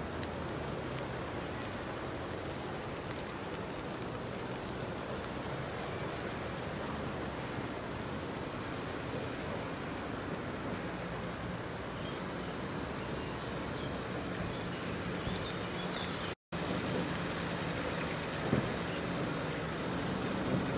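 Off-road SUV engine running at low revs as the vehicle crawls up a rocky track, faint under a steady hiss, getting louder as it comes closer. A single knock near the end.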